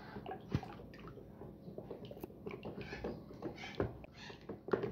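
Wooden spoon stirring a liquid soap mixture of used cooking oil and lye solution in a plastic bucket: faint, irregular wet squelches and light taps of the spoon.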